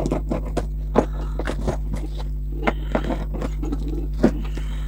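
Small folding knife cutting and scraping along a cardboard carton, with the box being handled: irregular sharp clicks and short scrapes over a steady low hum.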